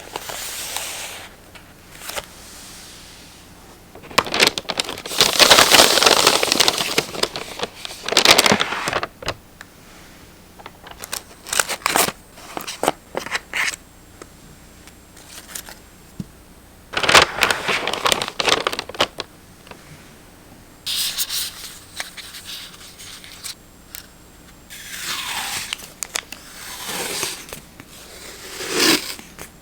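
Paper and stationery being handled up close: several bursts of rustling and scraping paper, with scattered light clicks and taps in between.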